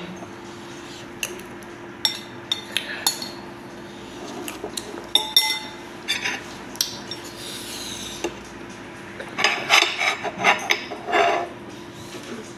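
Cutlery clinking and scraping against dishes in scattered sharp clicks, busier for a couple of seconds near the end.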